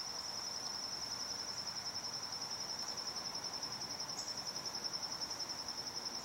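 Insects, crickets, trilling steadily: one continuous high-pitched chirr that does not let up.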